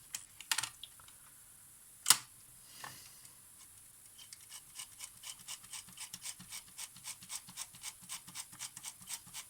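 A few sharp clicks, the loudest about two seconds in, then fast, even rubbing or scraping strokes, about four a second, slowly getting louder.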